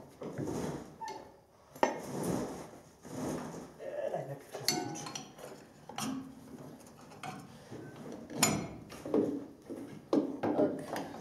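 Irregular metal clinks and knocks, some briefly ringing, from hand work on the steel pulleys, belt tensioner and drive parts of a combine header while the tensioner is loosened and the drive belt is worked off.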